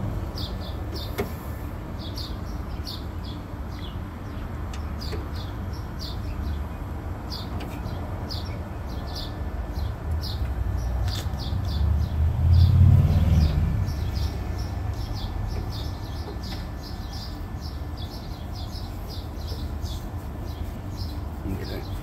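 A small bird chirping over and over, about two short chirps a second, over a steady low rumble that swells as a vehicle passes about twelve seconds in. A few light clicks of parts being handled near the start.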